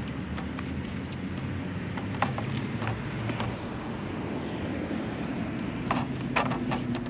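Light clicks and creaks of a plastic motorcycle mirror housing as its top tabs are hooked into the mount, a few scattered ones and then a small cluster near the end, over a steady low hum.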